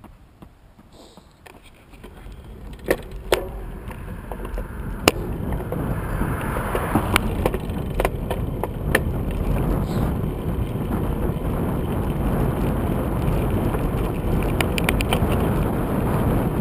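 Bicycle being ridden along a smooth cycle lane: a steady rush of tyres and wind that starts about two seconds in and grows louder as it gathers speed, with several sharp clicks and rattles from the bike along the way.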